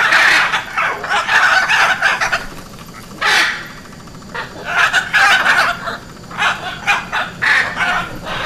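Hyacinth macaw giving repeated loud, harsh squawking calls in runs, with short pauses between them.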